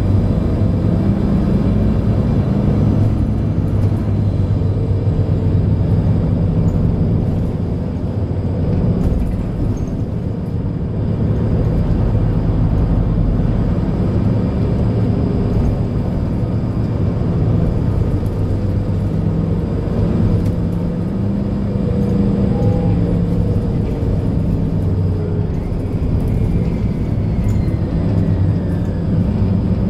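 Mercedes-Benz Citaro C2 Ü Hybrid bus's diesel engine running, heard from inside the passenger cabin as a steady low rumble whose pitch shifts a little.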